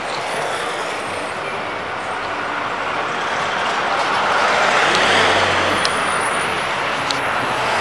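City street traffic: buses, matatu minibuses and cars running past, a steady mix of engine and tyre noise that grows louder about halfway through as a bus comes close.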